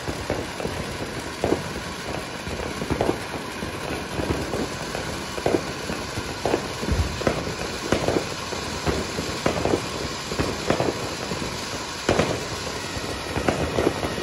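Army-made ground fountain firework spraying sparks: a steady hiss with irregular crackling pops about once or twice a second.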